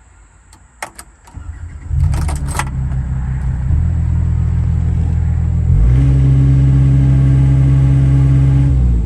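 Kato HD308US-7 mini excavator's diesel engine starting about two seconds in after a few clicks, then running steadily; about six seconds in it steps up to a higher steady speed and drops back down near the end.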